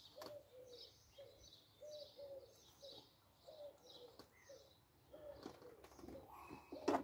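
Faint bird calls, short notes repeated about twice a second. A sharp click near the end.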